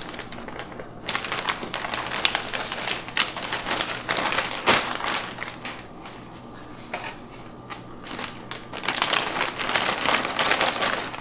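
Plastic 2-gallon zip-top bag crinkling and rustling as pieces of seasoned brisket are pushed into it, in two spells: from about a second in to halfway, and again near the end.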